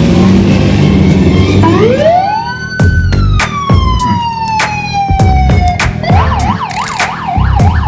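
Emergency vehicle siren winding up about two seconds in, then sinking slowly in pitch, then switching near the end to a fast up-and-down yelp. Loud repeated thuds run through it.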